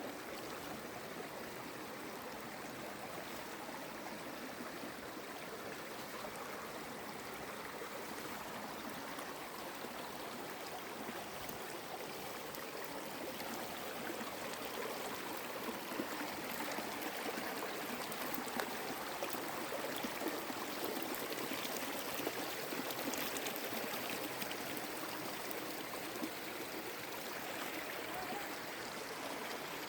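A small forest creek rushing and splashing as it pours over and between rocks, a steady flow that grows a little louder about halfway through.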